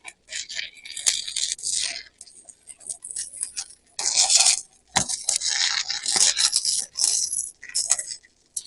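Stick-welding arc from a 7018 electrode, crackling and hissing in irregular bursts that start and stop several times, with a few sharp clicks.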